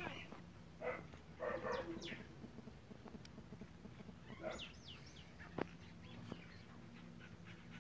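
Faint animal calls: two short calls in the first two seconds, then bird chirps about four and a half seconds in, with a few sharp clicks over a faint steady hum.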